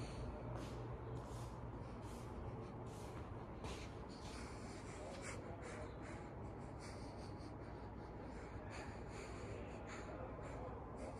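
Casablanca Four Seasons III ceiling fan running on a variable speed control: a steady low motor hum with a soft rhythmic sound repeating about one and a half times a second.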